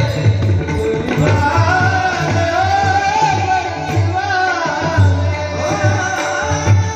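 Male voice singing a Marathi gaulan devotional song, accompanied by pakhawaj and tabla drums playing a steady rhythm.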